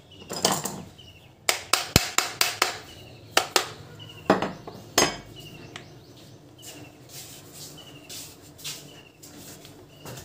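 Sharp metallic clinks and knocks of hand tools and small grinder parts being handled on a workbench. There is a quick run of taps in the first half, then fainter ones.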